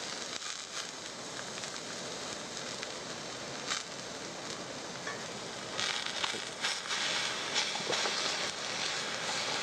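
Skipjack tuna fillet searing in a hot steel frying pan: a steady sizzle with scattered crackles and pops, a little louder from about six seconds in. The flesh side is being seared after the skin side, the quick sear for katsuo tataki.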